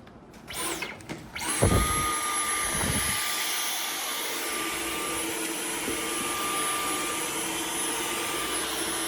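A few handling clicks, then a Dyson Outsize cordless stick vacuum switches on about a second and a half in and runs steadily: a rush of air with a constant high motor whine.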